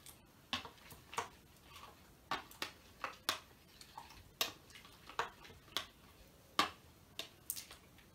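A spoon knocking and scraping against the side of a plastic bowl while stirring a thickening slime mixture, giving short irregular clicks about once or twice a second.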